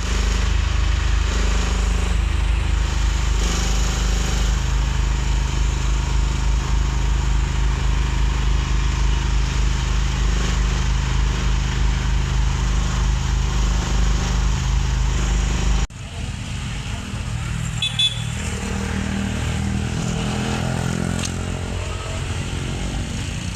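A steady, loud engine-like drone that stops abruptly about sixteen seconds in, replaced by a quieter, different steady running sound.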